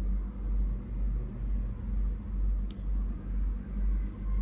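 A deep low rumble that swells and fades in a steady rhythm, about every two-thirds of a second, under faint steady hums, with one faint click near the middle.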